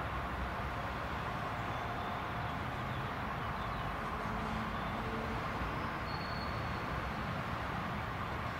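Diesel shunting locomotive hauling container wagons some way off: a steady low engine rumble with a faint hum under an even background hiss.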